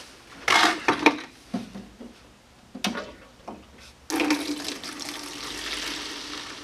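A few clicks and knocks of handling, then about four seconds in water starts rushing steadily out of the ultrasonic cleaner's tank through its opened ball-valve drain and hose into a waste bucket.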